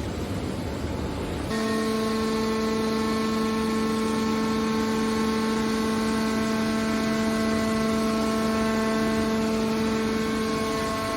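Automatic metal baler's hydraulic power unit running: a steady machine noise that turns, about a second and a half in, into a steady pitched whine.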